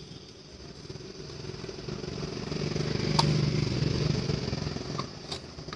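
A motor vehicle's engine passing by, a low pulsing rumble that swells and then fades. A few sharp clicks come through it, one about three seconds in as scissors snip through the juice carton.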